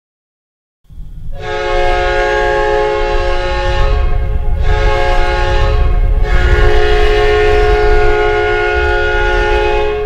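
The Winnipeg Jets' old hockey goal horn, a loud multi-tone air horn, sounding in three long blasts that start about a second in, the last one the longest, over a low rumbling noise.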